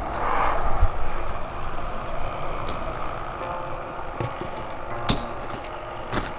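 The rumbling tail of a boom sound effect fades out in the first second. Then a BMX bike's tyres roll on skatepark concrete, with one sharp clack about five seconds in.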